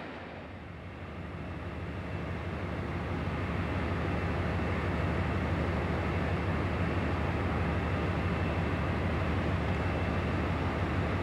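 InterCity 125 (HST) Class 43 diesel power car idling at a standstill: a steady low engine hum with a thin, steady high tone over it, growing louder over the first few seconds and then holding even.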